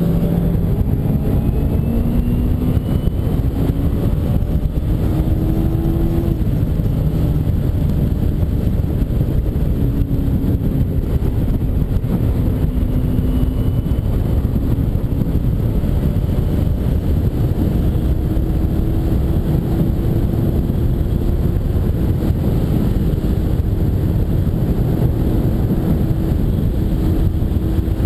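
Kawasaki Ninja 250R's parallel-twin engine under way. It rises in pitch as it accelerates for the first six seconds, drops at a gear change, then runs at a fairly steady cruising pitch. A heavy rush of wind noise lies underneath.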